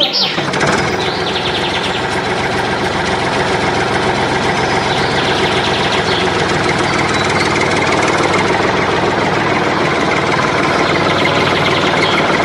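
A small engine cuts in suddenly and runs steadily at a fast, even idle.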